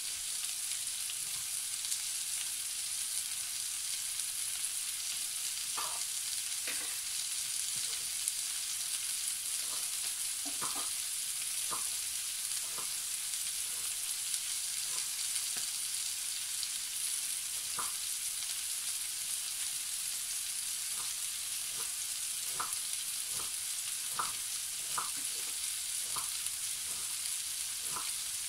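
Diced carrots, onions and other vegetables frying in a large black roasting pan on the hob: a steady sizzle with scattered short pops and crackles, which come more often near the end.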